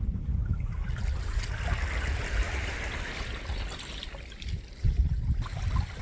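Shallow water washing and trickling at the shoreline, swelling twice, over a low wind rumble on the microphone that gusts about five seconds in.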